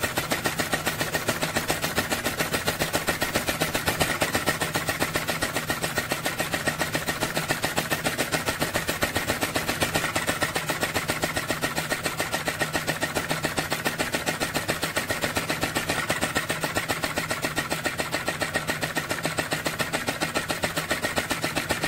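Model flame-eater (vacuum) engine running steadily, its valve and piston giving a rapid, even mechanical beat that does not falter, the sign of a well-adjusted engine.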